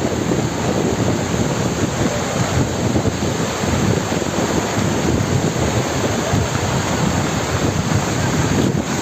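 Floodwater rushing after a sudden storm, a steady loud rushing noise, with wind gusting on the microphone.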